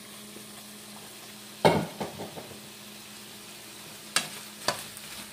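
Shrimp heads and vegetables sizzling as they are sautéed in a stainless steel skillet, with a loud metal clank about a second and a half in. Near the end, a spatula knocks twice against the pan as the food is stirred.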